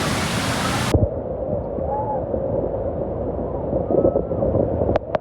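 Steady roar of Niagara Falls' rushing water that cuts off abruptly about a second in. After the cut comes a duller, muffled rushing with a steady hum and faint gliding tones, with a few sharp clicks near the end.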